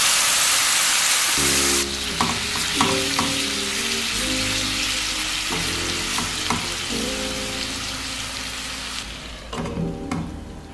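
Chopped tomatoes sizzling in a hot stainless steel pan of tripe and onions, loudest in the first two seconds and easing off, with a few knocks of a utensil against the pan. Near the end a pan lid clinks on. Faint background music with held notes runs underneath.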